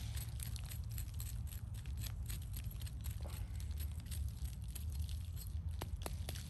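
Dry, brittle bonsai roots and soil crackling and scratching as a small metal root tool picks and scrapes through the root ball of a dead tree, in many short irregular clicks over a steady low rumble.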